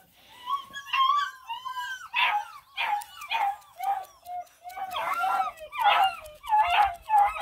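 Black and tan coonhound puppies crying out in a run of high whines and yelps, which get louder and come quicker from about two seconds in.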